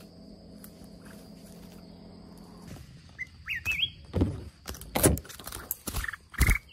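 A faint steady low hum stops about three seconds in. Short rising bird chirps from the bulbuls follow, then loud thumps and brushing of hurried footsteps through undergrowth, with more short bird calls near the end.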